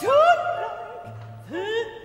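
Operatic-style singing with instrumental accompaniment: the voice slides up into a held note at the start, fades, then swoops up into another note about one and a half seconds in.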